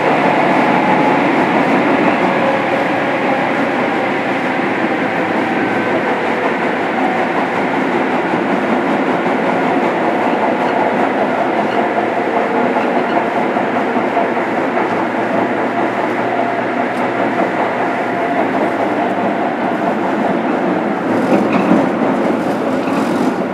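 Running noise heard from inside a JR Kyushu 103 series motor car (MoHa 102-1506) in the subway: a steady rumble from the wheels and track with a faint whine from its MT55 traction motors. A few sharp clacks come near the end.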